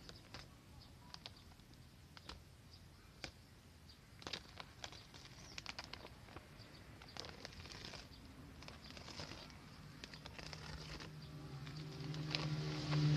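Scattered rustles and clicks of a woven plastic fertilizer sack being handled at its open top. A steady low hum builds up over the last few seconds.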